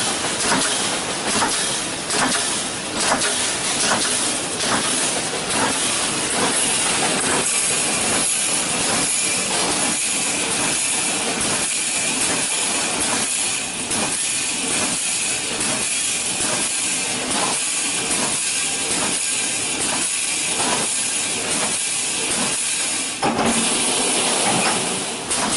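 Chicken cage wire mesh welding machine running: a steady hiss with regular knocking strokes, a little under two a second.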